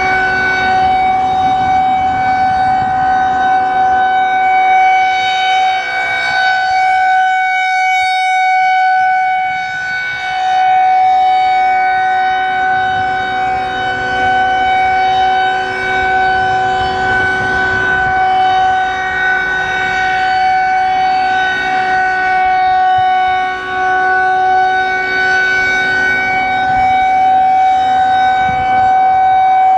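Federal Signal 2001-130 rotating electromechanical siren sounding a steady full-alert tone, one held pitch with no rise or fall. Its loudness swells and fades every seven seconds or so as the rotating horn sweeps toward and away, with the deepest fade about eight seconds in.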